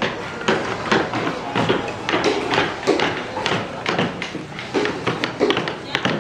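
Woodcarvers' mallets striking chisels into wood, a busy, irregular tapping of several knocks a second from more than one worker.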